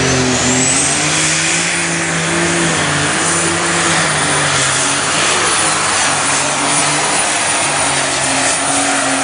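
Unlimited super stock pulling tractor's turbocharged diesel engine running flat out under load. A high turbo whine rises in the first second to a very high, held scream.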